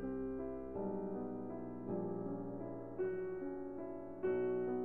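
Background music: a soft piano melody, new notes struck about every second.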